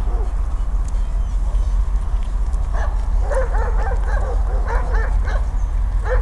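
A dog whining and yipping in a run of short high cries from about three seconds in, over a steady low rumble.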